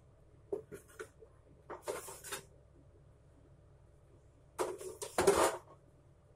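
Dishes and utensils being handled on a kitchen countertop: three short bouts of knocks and clatter, the loudest about five seconds in.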